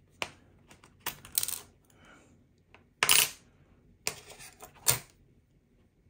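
Small metal parts of a disassembled folding knife clicking and clinking as they are handled and set down: about six short, separate clinks spread over several seconds.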